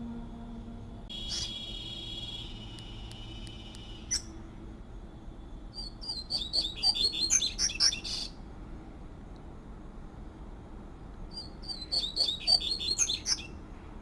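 Double-collared seedeater (coleiro) singing its fluty 'tui-tui' song. A held note starts about a second in, then comes a fast phrase of quick clear notes in the middle and another near the end.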